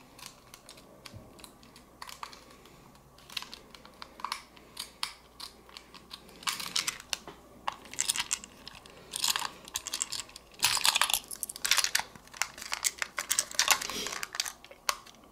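Irregular clicks and scrapes of a small precision screwdriver working at a tight screw in the plastic body of a TrackMaster toy engine, with the plastic toy being handled. The clicking comes thicker from about halfway.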